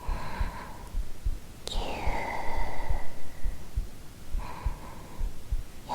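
A close-miked human heartbeat: a steady run of soft, low thumps. Three soft breathy sounds lie over it.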